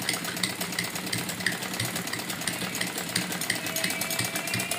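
Sewing machine stitching a seam, a steady rhythmic clatter of about four stitches a second.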